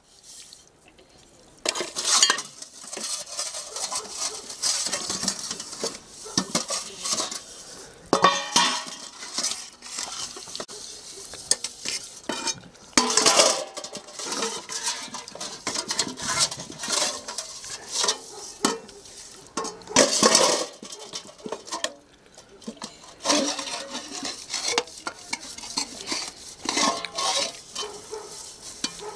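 A metal spoon stirring and scraping in a cooking pot in irregular strokes, with pots and dishes clinking.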